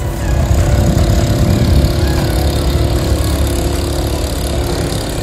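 An engine running steadily, with a low rumble and a steady hum.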